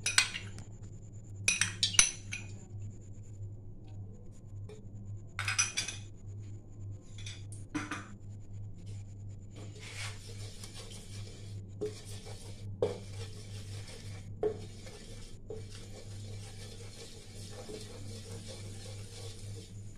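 A spoon clinks sharply against a non-stick kadai a few times in the first eight seconds as ghee is added, then a spatula spreads the melting ghee around the pan, making a steady scraping hiss in short strokes.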